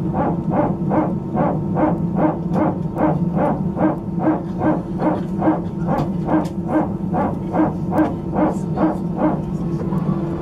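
Airbus A320 hydraulic power transfer unit (PTU) barking: a rhythmic, dog-like bark repeating about two or three times a second over a steady low hum, stopping near the end. The bark is the sign of the PTU transferring pressure between the aircraft's hydraulic systems.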